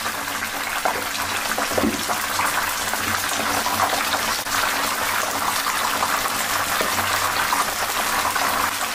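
Hot oil sizzling and bubbling steadily as batter-coated cabbage rolls deep-fry in a pan over high heat, the final stage that crisps them golden on all sides.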